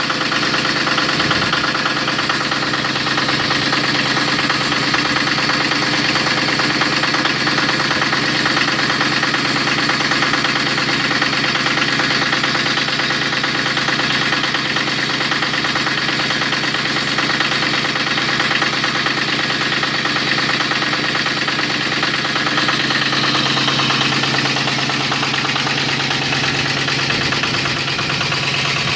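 Honda E4000 V-twin generator engine running steadily at a constant speed.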